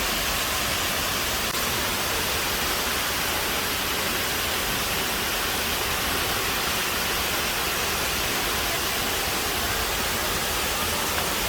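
Steady rushing hiss of falling water from the purification waterfall, even and unbroken throughout.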